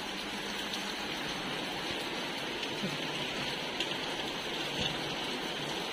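Steady rain falling: an even, continuous hiss with a few faint drip taps.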